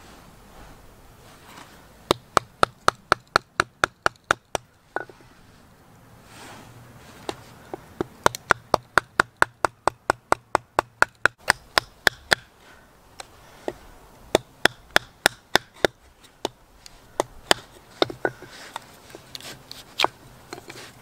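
Wooden mallet striking the spine of a LionSTEEL knife to baton it through a small wooden round. The sharp knocks come in quick runs of about four a second, with short pauses between runs.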